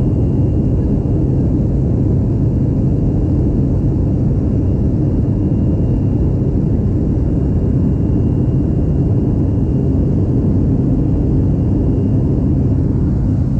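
Steady low drone of a light aircraft's engine and propeller heard from inside the cabin, with a faint high whine above it.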